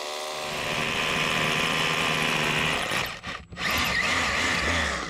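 A power drill boring into a concrete pad through a steel mounting bracket, drilling the hole for an anchor bolt. It stops briefly about three seconds in, then drills again.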